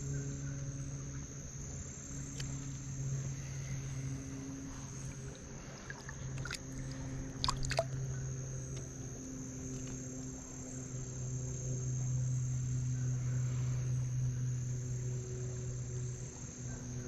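Steady insect chorus, a constant high-pitched buzz, over a steady low hum, with a few brief clicks about halfway through.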